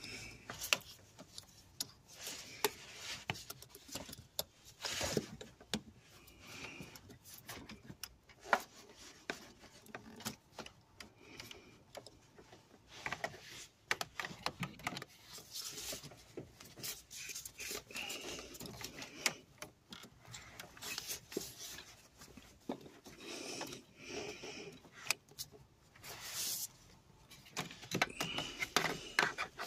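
Irregular clicks, clinks and scrapes of hand tools and metal parts being handled while a part is worked back into place in a car's engine bay.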